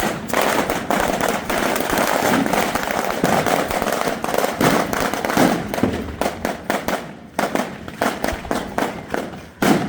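Fireworks crackling: a dense, rapid crackle of many small pops that thins after about six seconds into scattered separate cracks.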